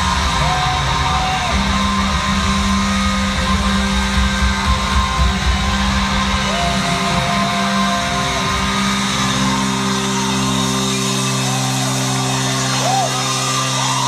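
Live rock band playing loud through a hall's PA, heard from within the audience. About two-thirds of the way through, the drums and bass drop out, leaving held guitar chords ringing, with a few shouts from the crowd.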